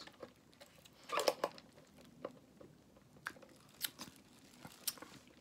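Eating sounds: scattered quiet crunches and clicks of chewing fried fast food, with a louder crunch about a second in.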